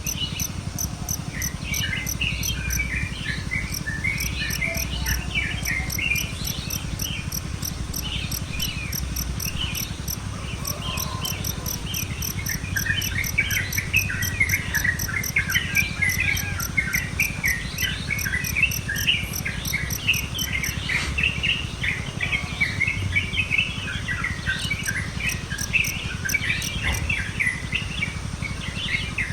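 Many songbirds chirping and twittering together, busier in the second half. An insect keeps up a fast, even, high pulsing that stops about two-thirds of the way through.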